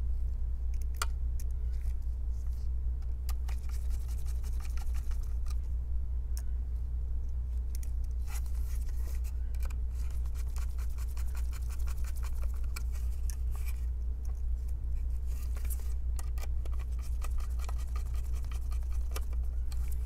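Small clicks, ticks and scrapes of a Phillips screwdriver turning screws into a metal 2.5-inch drive bracket holding an SSD, with the bracket handled in the hands, over a steady low hum.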